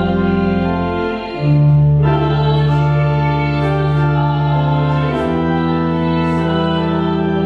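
Church organ playing slow, held chords, the chord changing about a second and a half in and again about five seconds in.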